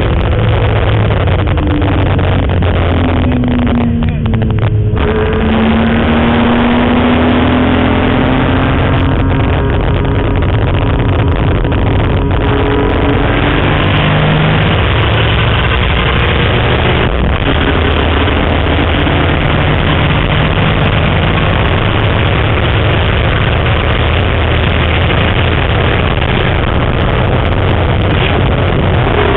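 BMW M3 race car's engine running hard under load, heard from inside the cabin together with wind and tyre noise. Its pitch rises and falls through the lap, with short dips about four seconds in and again around twelve seconds in.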